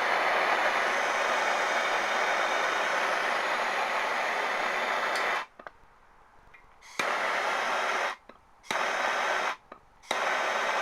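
BernzOmatic TS7000 trigger-start torch firing with a loud, steady hiss of the flame, held for about five seconds, then cut off and fired again in three short bursts of about a second each. The torch is lighting and running properly.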